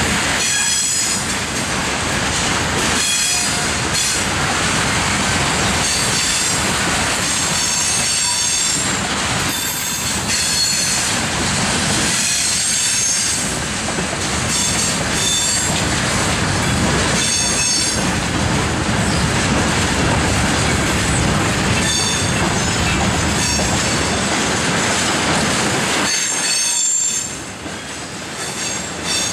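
Loaded freight train of tank cars rolling past at close range, with a high-pitched wheel squeal that comes and goes. The noise dips briefly near the end.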